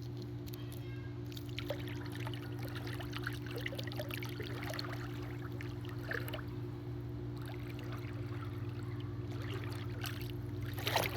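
Pool water trickling and lapping, with small splashes, over a steady low hum.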